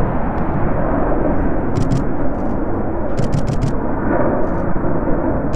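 Low-flying twin-engine F-15 fighter jets making a loud, steady rumble as they pass through the valley. Quick runs of sharp clicks sound over it twice.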